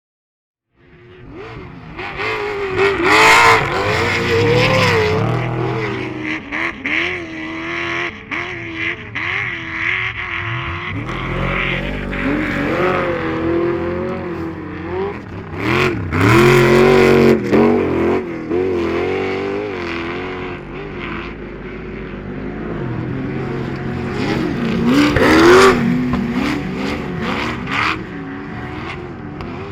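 Several off-road race vehicles' engines revving up and down as they race on a dirt course, loudest in three close passes. The sound comes in abruptly about a second in.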